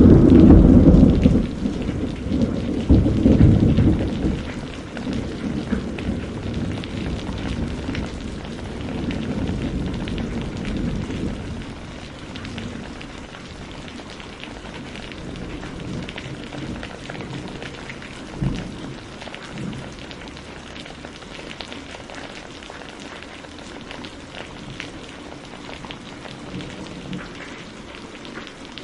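Steady rain with a loud thunderclap right at the start that rumbles on and dies away over several seconds. A shorter, fainter low thump of thunder comes about two-thirds of the way through.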